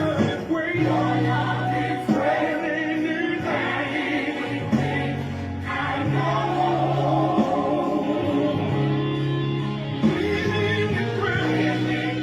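Gospel choir singing over instrumental accompaniment, with long held notes.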